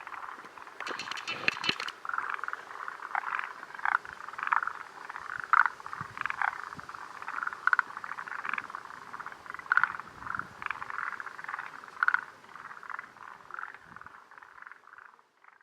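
A chorus of frogs, forest green tree frogs and Japanese mountain brown frogs, giving many short, overlapping calls. There is a brief crackle of handling noise about a second in.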